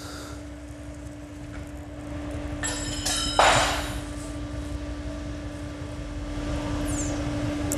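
Nitrogen-charged Reiger rally shock absorber being pushed down by hand, hissing and bubbling, with one short loud hiss about three and a half seconds in. The mechanic takes the bubbling and hissing as a sign of bad seals inside.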